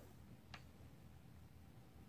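Near silence: faint room tone, with one faint click about half a second in.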